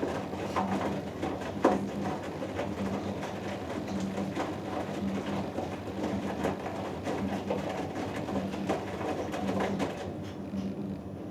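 Hoover Dynamic Next DXA610IW3 front-loading washing machine in the wash phase of a cotton cycle: the drum turning with the motor humming and laundry and water sloshing and knocking inside. The sloshing thins out about ten seconds in.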